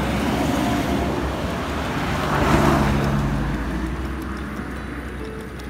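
A road vehicle passing: engine and tyre noise that swells to a peak about two and a half seconds in, then fades away.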